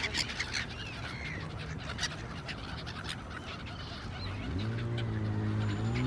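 Black-headed gulls calling with short harsh cries over the water. About four and a half seconds in, a low engine hum comes in and starts to rise in pitch near the end.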